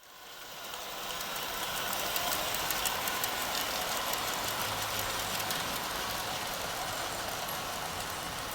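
Märklin gauge 1 Krokodil model locomotives running with a freight train: a steady electric motor and gear hum with fine rapid clicking of the wheels on the track, fading in over the first second.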